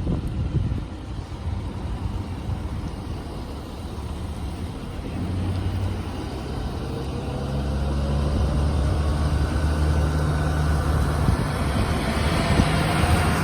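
A motor vehicle's engine running with a steady low hum, getting louder through the second half.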